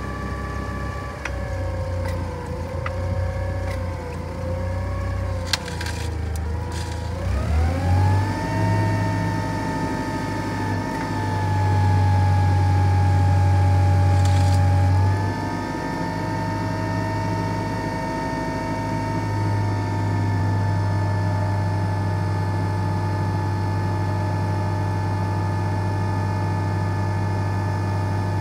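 Clark CGP 25 forklift's LPG engine running; a few seconds in the revs rise and it runs louder for a few seconds, then settles into a steady run.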